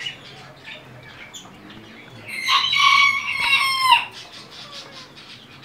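Rooster crowing once, about two seconds in: a single crow of a second and a half or so, its pitch dropping at the end.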